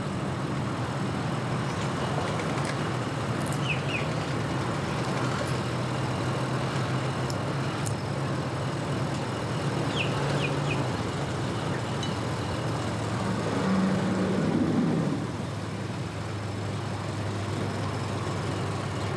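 Engines running at a boat ramp: a steady low hum, with one engine rising in pitch and getting louder for a couple of seconds about three-quarters of the way through.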